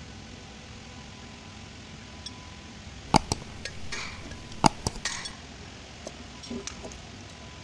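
A few sharp metallic clicks: two in quick succession a little past the middle, then two or three more about a second and a half later, over a steady background hum.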